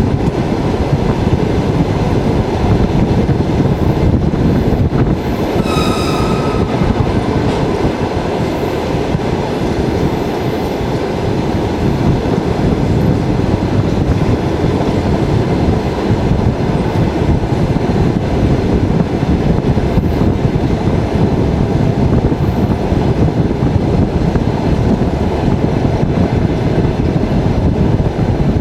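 Running noise of a passenger train coach heard from its window: a loud, steady rumble of wheels on rail. About six seconds in there is a brief high-pitched tone.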